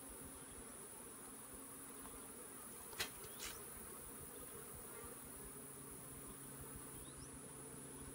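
Honeybees humming faintly from an open nuc box, over a steady high-pitched drone. About three seconds in there are two sharp clicks half a second apart, as the hive tool works the frames.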